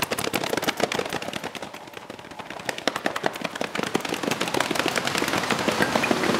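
Hands slapping thighs and clapping in a fast, irregular patter of sharp slaps. It dips about two seconds in and then builds again.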